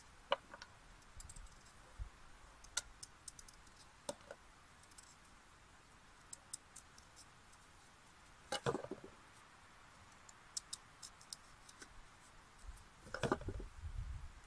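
Sweet potato being peeled by hand: sparse small clicks and scrapes, with two louder bumps about nine and thirteen seconds in.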